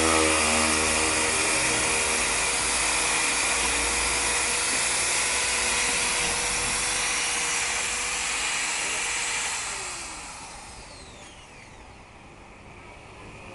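Bosch electric drill with a mixing paddle churning a thick mix in a plastic bucket, running steadily with a constant whine. About ten seconds in it is released and winds down with a falling whine, leaving only quieter background noise.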